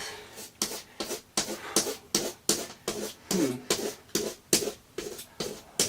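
Razor blade scraping the flaking anti-glare coating on a plasma TV screen in quick, repeated strokes, about four a second.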